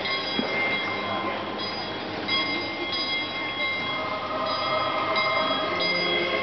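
Machinery of a moving nativity scene running: a steady mechanical clatter and whirr, with thin high tones that come and go every second or so.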